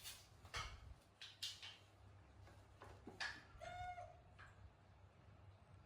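Mostly near silence with a few faint clicks, and one short, high-pitched call from a pet animal about three and a half seconds in.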